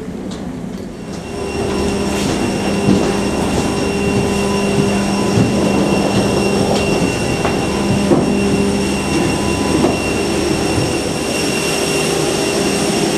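Steady machine whine and hum of a parked jet airliner and its gate equipment, heard from inside the jet bridge, getting louder about a second in and holding several steady high tones. Scattered clicks and knocks of footsteps and rolling luggage run through it.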